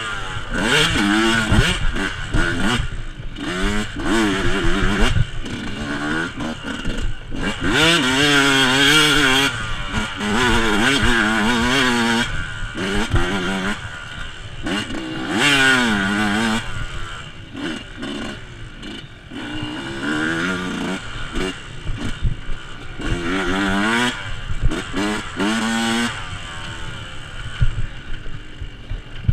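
Yamaha YZ125 two-stroke single-cylinder engine revving up and falling back over and over as the rider accelerates, shifts and brakes, with scattered knocks and rattles from the bike over rough ground.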